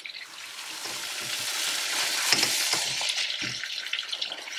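Tandoori chicken wings and their sauce sizzling in a hot wok as a spatula stirs and tosses them, with a few soft knocks of the spatula against the pan. The sizzle swells about halfway through and then eases.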